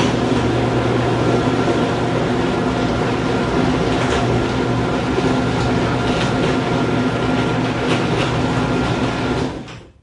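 Electric garage door running: a steady mechanical hum from the opener's motor with a few faint clicks, cutting off sharply near the end.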